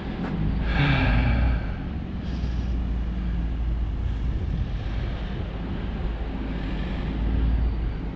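Jeep engines running at low speed as vehicles crawl into parking rows: a steady low rumble, with a louder swell and a falling pitch about a second in.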